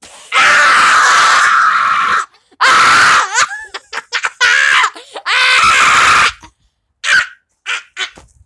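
A person screaming: three long, loud screams so loud they distort, then a few short cries near the end.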